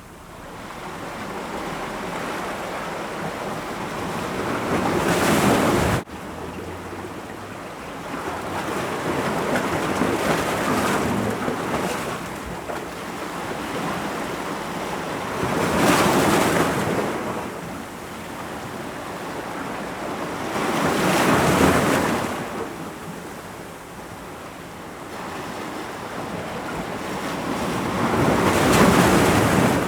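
Ocean waves breaking against rocks: a constant rush of surf swelling into four loud crashes several seconds apart. The first crash cuts off abruptly.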